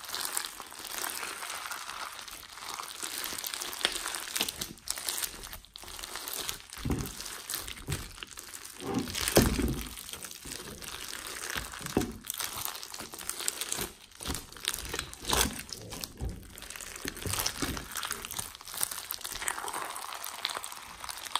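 Clear crunchy foam-bead slime (floam) being squeezed, pressed and stretched by hand, the foam beads crackling and popping continuously, with a louder squish about nine seconds in.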